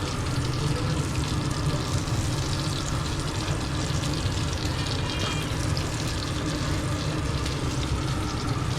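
Curry frying and sizzling in a pan on the stove, over a steady low hum.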